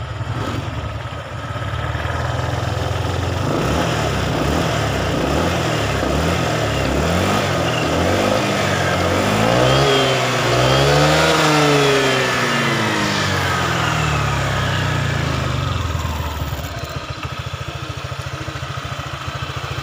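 Honda PCX 150 scooter's single-cylinder engine idling, then revved up and down several times with the throttle, highest about halfway through, before dropping back to a steady idle near the end. This is the engine's sound after a valve adjustment and a full CVT cleaning.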